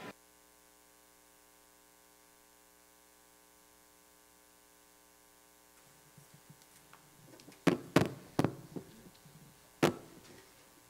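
Faint steady electrical mains hum, with a few sharp knocks in the second half, the loudest at about eight seconds and near ten seconds.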